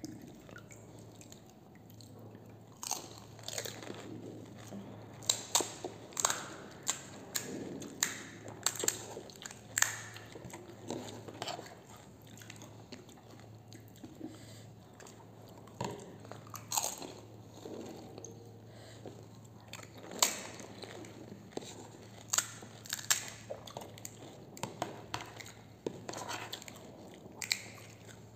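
Crisp golgappa (pani puri) shells being cracked open and crunched in the mouth: irregular short, sharp crunches and chewing.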